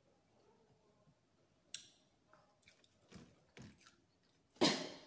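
Close-miked chewing and mouth sounds while eating fish: a handful of separate wet bites and smacks, the loudest one near the end.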